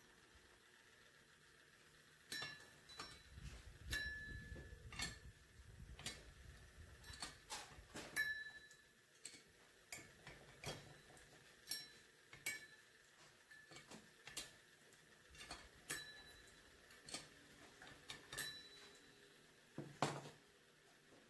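Sharp metal clicks and clinks of pliers on an aluminium cylinder head and its valve guides while the valve stem seals are worked off by hand. About one click a second, irregular, each with a brief ringing tone; the loudest clink comes near the end.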